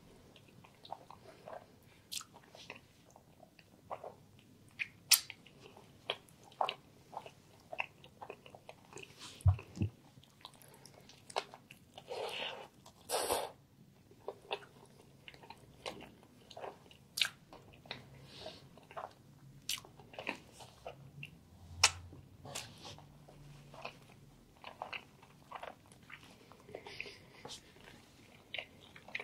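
Close-miked mouth sounds of a person eating a chicken and mushroom sandwich: wet chewing smacks and clicks throughout, with a longer crunching bite into the toasted roll about halfway through.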